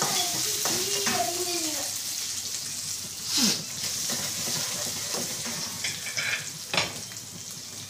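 Chopped green chillies, ginger and dals sizzling in hot oil in a wok while a spatula stirs and scrapes them; the sizzle fades slowly. One louder scrape comes about three and a half seconds in, and a single sharp knock near the end.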